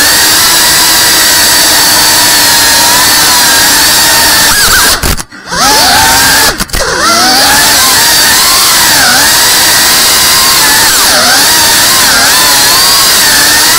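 FPV quadcopter's brushless motors and propellers whining loudly, heard close from the onboard camera, with the pitch rising and falling as the throttle changes. About five seconds in the motors cut out for roughly half a second, dip again briefly a second later, then spin back up.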